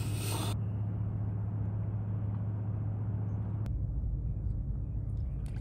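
Steady low rumble with a hum in it. About three and a half seconds in it changes abruptly and becomes deeper.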